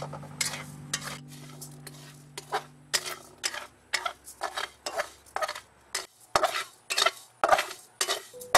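A wooden-handled spatula scraping and stirring dry rice grains around a metal pan in quick repeated strokes, about two or three a second, as the raw rice is toasted brown for rice coffee.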